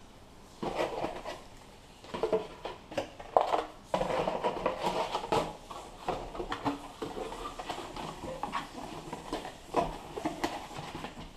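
Cardboard packaging being handled: irregular scraping, rustling and light knocks as the shipping box, its insert and the product box are moved about and closed.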